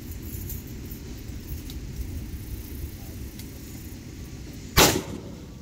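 Steady low wind rumble on the microphone, with one sudden loud burst of noise lasting a fraction of a second near the end.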